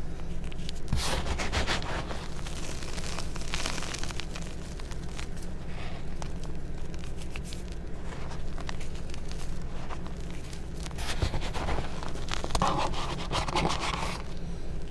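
Hands crushing and digging through crumbled reformed gym chalk: dry, gritty crunching and crackling of chalk powder and chunks. It is louder about a second in and again for a few seconds near the end, over a low steady hum.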